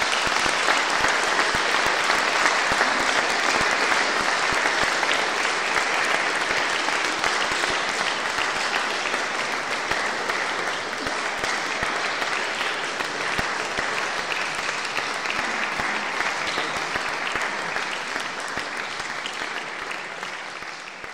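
Concert audience applauding steadily, the clapping dying away near the end.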